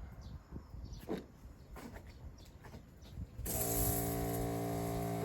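Small motorized pesticide sprayer switching on and running steadily for about two seconds with an even hum and a hiss, then cutting off abruptly. Faint bird chirps come before it.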